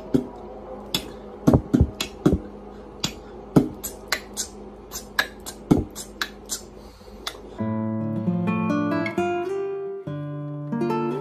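Sharp, irregular clicks, two or three a second, from a cat's claws tapping on a tile floor as it walks, over a low steady hum. About seven and a half seconds in, this cuts to acoustic guitar music, plucked and strummed.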